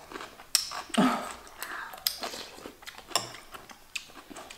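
Close-up crunching and chewing of crisp dill pickle, a run of irregular, crisp crunches, with a short hum of pleasure about a second in.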